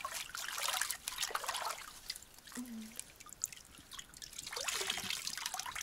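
Water splashing and trickling as long hair is rinsed by hand in a shallow creek, then streaming and dripping back into the creek as the wet hair is wrung out about four seconds in.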